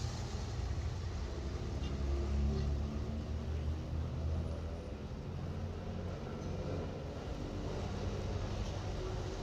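A steady low engine rumble, with a dull noise haze above it, from a sound-effects record.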